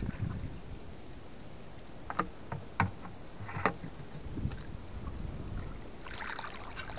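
Water sloshing and splashing as someone moves through shallow river water, with three sharp knocks between about two and four seconds in and a short burst of splashing near the end. A low rumble runs underneath.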